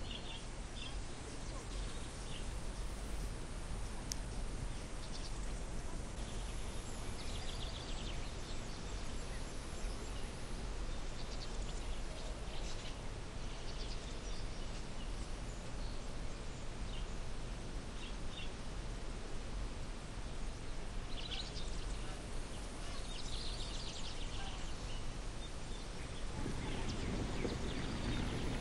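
Outdoor ambience: a steady hiss of background noise with scattered short bird chirps. A louder low noise comes in near the end.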